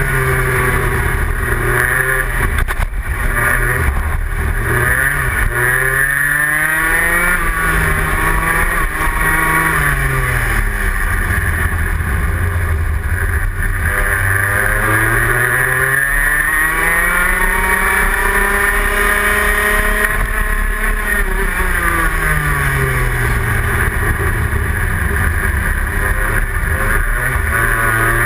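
Rotax Max 125cc single-cylinder two-stroke kart engine heard from onboard, revving up on the straights and dropping off when the driver lifts for corners, its pitch rising and falling several times over the lap.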